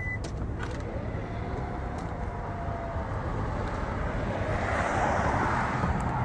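Outdoor traffic noise: a steady low rumble, with a vehicle passing, rising to its loudest around five seconds in and fading by the end.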